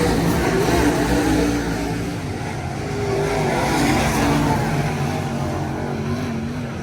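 Race car engines running on the track, several engines rising and falling in pitch over a steady rumble.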